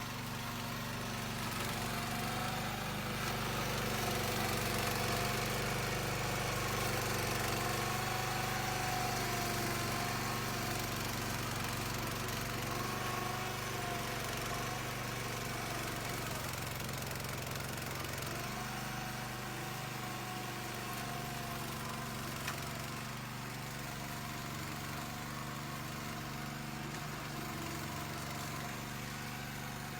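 Engine of a remote-controlled grass-cutting mower running steadily, its pitch wavering slightly now and then.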